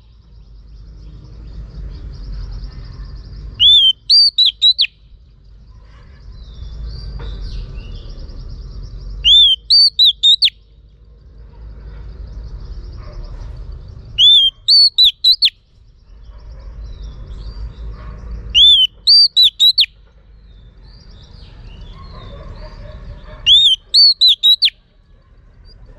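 Female oriental magpie-robin calling: a short phrase of four or five loud, clear whistled notes, repeated five times at about five-second intervals. It is the female call that keepers use to stir up male magpie-robins.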